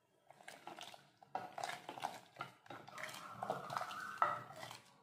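A ladle stirring thick sambar in a pressure-cooker pot, with irregular scrapes and light knocks against the pot and the stew sloshing.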